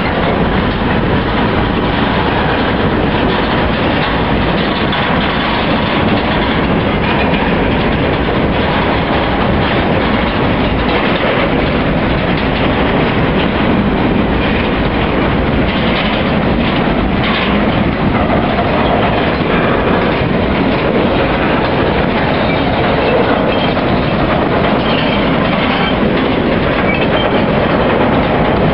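Freight cars (centerbeam flatcars and boxcars) rolling past close by: a loud, steady noise of steel wheels running over the rails.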